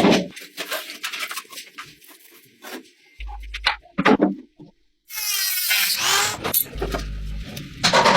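Short clips of workshop tool noise: scattered knocks and scrapes, then a power tool running for about a second and a half, cut off suddenly.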